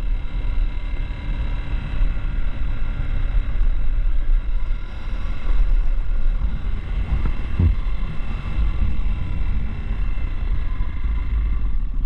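Motorcycle riding along a road: engine running under a heavy, steady low rumble.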